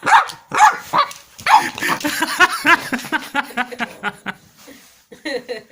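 Chihuahua puppy yapping in a rapid string of short, high barks, worked up at a toy it can't bite; the barks thin out near the end.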